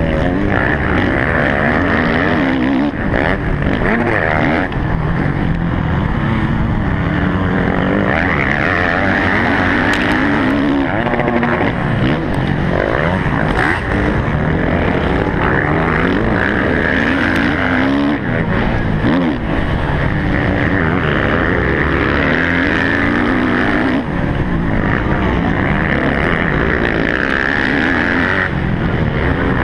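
Motocross bike engine heard close up from the bike itself, under hard throttle, its pitch rising and falling over and over as the rider accelerates, backs off and shifts through the corners and straights.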